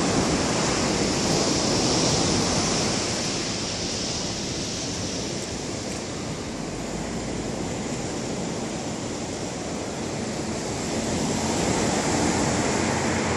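Wind buffeting the microphone over the steady rush of surf breaking on a pebble beach, louder at the start and again near the end.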